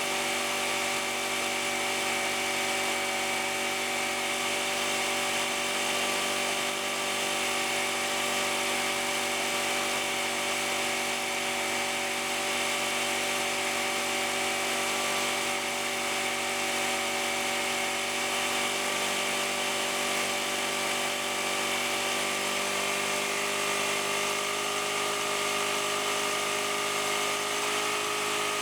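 Airman EP2300 portable generator's small four-stroke engine running at a steady speed, an even hum with a high whine over it; its pitch edges up slightly near the end.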